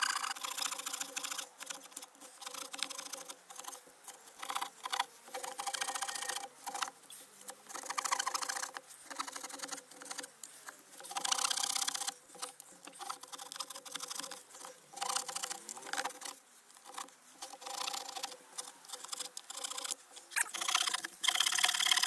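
Small saw blade of a Victorinox pocket knife cutting across a larch board by hand: a run of short back-and-forth sawing strokes with brief pauses between them.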